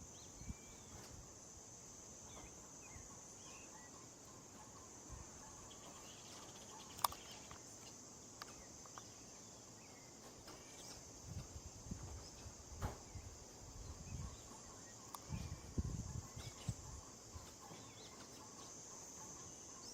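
Outdoor tropical ambience: a steady high insect drone with scattered short bird chirps. A few sharp clicks and some low bumps come through in the middle stretch.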